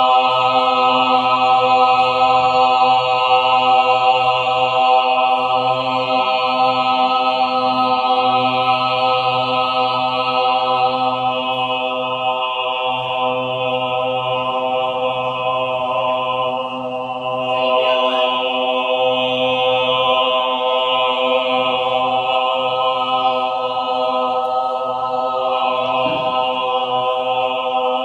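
Mixed-voice choir singing a cappella, holding one long, steady chord like a chant drone, with only slight shifts in the upper voices and a brief dip in volume about seventeen seconds in.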